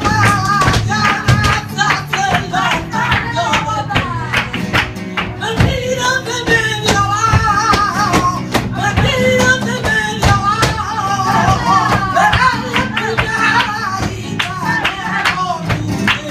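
Flamenco music: a wavering, ornamented flamenco vocal over guitar, with many sharp percussive strikes throughout.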